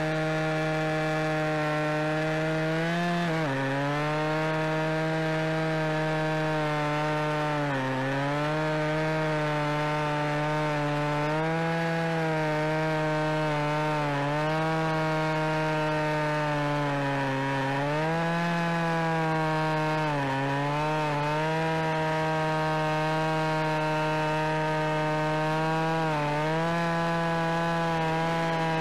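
Husqvarna 445 two-stroke chainsaw with an 18-inch bar running at full throttle while cutting through a large log. The engine pitch dips briefly and recovers several times as the chain is pushed harder into the wood.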